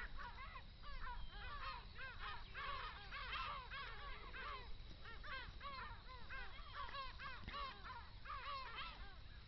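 A flock of birds calling all at once: many short calls, each rising and falling, overlapping several times a second in a steady chorus.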